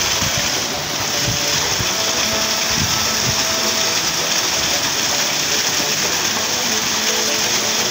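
Water gushing steadily from an irrigation channel outlet and splashing onto rocks below, with a few low bumps in the first few seconds.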